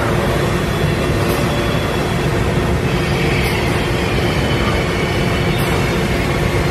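Robotic trim router cell running: a steady mechanical rumble with a low hum as the six-axis robot arm moves the router spindle, with a faint tick about every two seconds.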